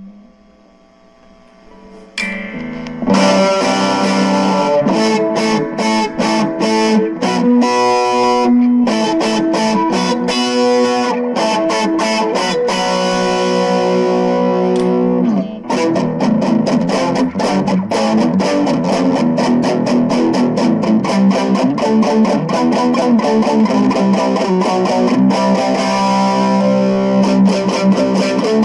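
Cort CR50 electric guitar played through a Cort MX15R practice amp with light distortion. After about two seconds the playing comes in with picked notes and chords. There is a brief break about halfway, then steady strummed chords.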